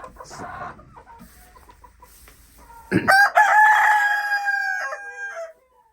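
Rooster crowing once, a loud, long cock-a-doodle-doo starting about three seconds in and lasting about two and a half seconds, held on one pitch and dropping at the end.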